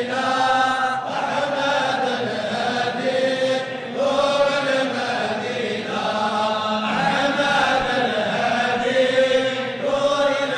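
Slow devotional chanting, voices holding long notes and gliding between them, laid over the closing card.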